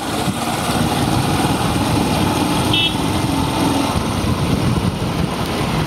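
Motor vehicle engine running close by, a steady low rumble.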